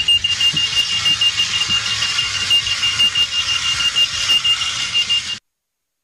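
Clocky wheeled alarm clock sounding its alarm, a rapid, shrill, evenly pulsed beep at one pitch, while it drives itself across the floor. The beeping cuts off suddenly about five seconds in.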